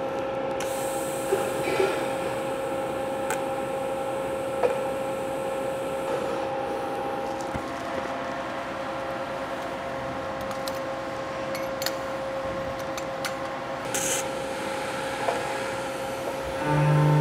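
Steady hum and hiss of a TIG welder tacking thin-wall titanium tubing at about 65 amps with no pulse, with a few light clicks. Background music comes in near the end, louder than the welding.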